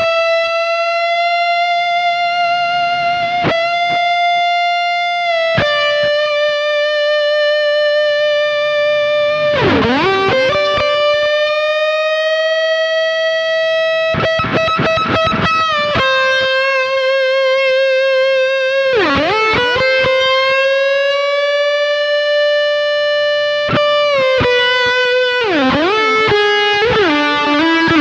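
Tokai ALS62 GT Les Paul–style electric guitar on its humbucker pickup through a distorted tone, playing a lead line of long sustained notes with vibrato, joined by slides and quick runs, with a busier flurry of notes near the end. The long sustain is typical of the Les Paul body.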